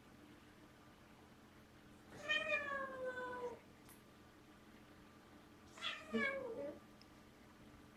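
Siamese cat meowing twice: a long call sliding down in pitch about two seconds in, then a shorter falling call near the six-second mark.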